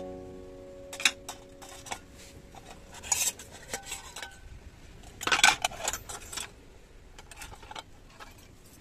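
Hard objects being handled, clinking and clattering in scattered knocks, with two busier clatters about three seconds and five and a half seconds in.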